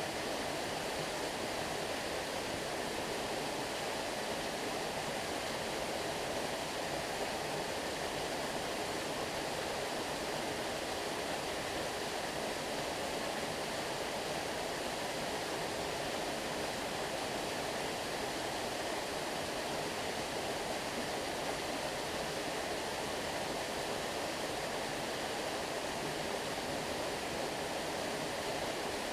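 Small waterfall: water falling and rushing steadily.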